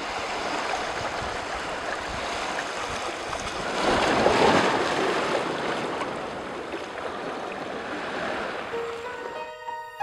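Sea water washing, swelling to its loudest about four seconds in and then easing off. Gentle music with a few held notes comes in near the end.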